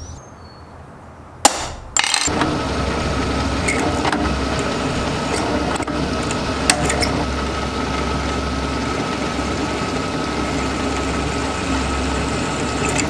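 A hammer strikes a center punch on a copper bar once, about a second and a half in. Then a drill press runs steadily with a constant whine, its twist drill boring through the copper bar.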